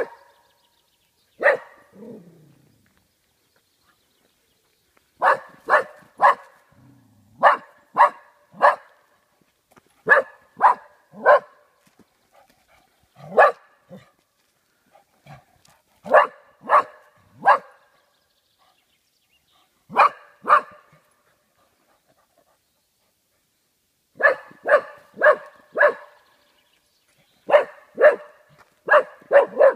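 Golden cocker spaniel barking, frightened of cardboard cutouts of animals: sharp single barks in bursts of two to four, with pauses of one to three seconds between bursts.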